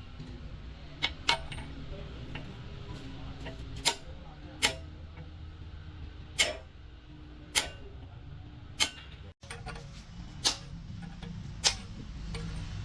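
Sharp metallic taps or knocks, about nine in all, roughly one every second, each with a short ring, over a low steady workshop background.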